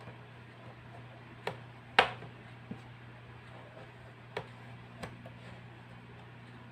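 A miniature knife cutting a small piece of vegetable on a tiny wooden cutting board: about six sharp, irregular taps of the blade against the board, the loudest about two seconds in, over a low steady hum.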